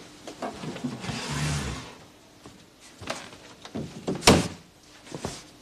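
Scattered knocks and a rustle of movement about a second in, with one sharp thump just after four seconds, the loudest sound.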